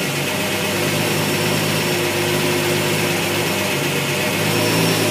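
Car engine idling fast, at about 1100 rpm while warming up, after the fast idle solenoid has kicked down. The idle rises and falls slightly, and the owner says it is still surging.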